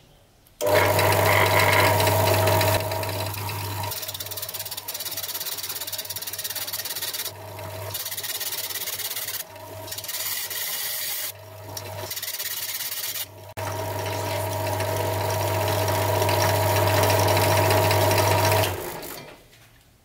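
Drill press spinning an abrasive cut-off disc, mounted on a bolt in its chuck, grinding a nail nick into a knife blade held in a wooden jig. A steady motor hum under a harsh grinding hiss starts about half a second in, dips and comes back several times, and stops about a second before the end.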